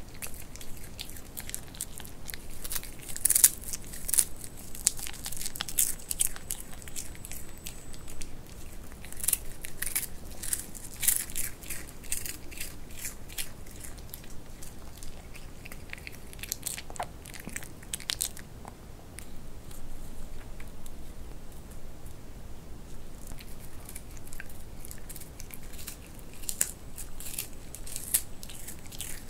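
White Pomeranian chewing and crunching dried vegetable chips: crisp, sharp crunches come thick and fast through the first half, thin out to a few in the middle, and pick up again near the end.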